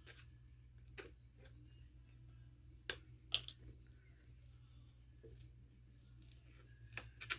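A few faint, sharp clicks and scrapes of a thin plastic pry tool working under a MacBook battery cell held down by strong double-sided tape, the loudest click about three and a half seconds in and two more near the end.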